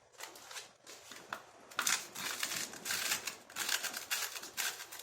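Sandpaper rubbed by hand over the splines of a plastic clutch alignment tool, to shave them down until it fits the clutch. A few light scratches at first, then quick back-and-forth sanding strokes, about two or three a second, from about two seconds in.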